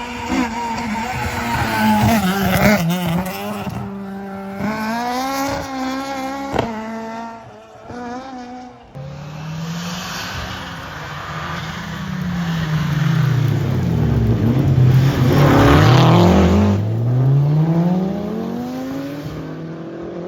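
Rally car engines at full throttle: one revving hard and climbing through several upshifts, then another car approaching and passing close late on, its engine note dropping as it goes away.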